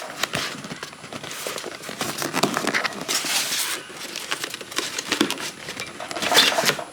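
Handling of cardboard parts boxes and metal hinge pieces: irregular rustling and crinkling with light clicks and clinks.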